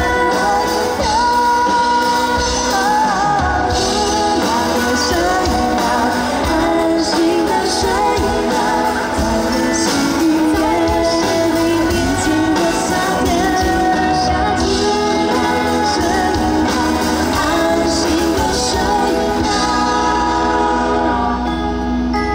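Pop song sung by a lead vocalist over a full band, played steadily all through.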